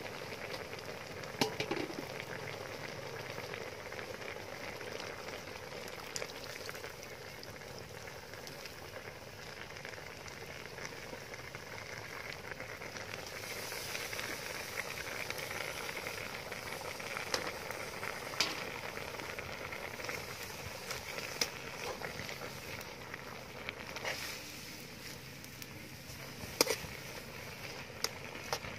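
Eel and banana-flower soup boiling hard in a steel wok over a wood fire, a steady bubbling hiss with scattered sharp clicks. About halfway through, sliced vegetables and leafy greens are dropped into the pot. Near the end a utensil knocks against the wok.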